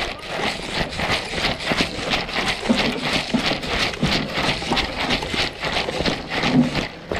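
Footsteps of a person moving quickly through woodland, about three steps a second, with rustling.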